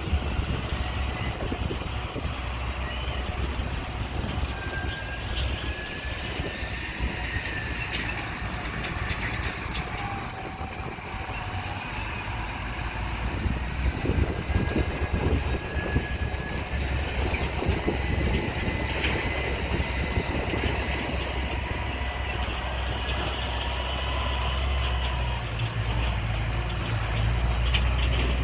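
Heavy diesel harvest machinery running steadily: a deep engine drone with faint thin whining tones that drift in pitch above it, growing louder near the end.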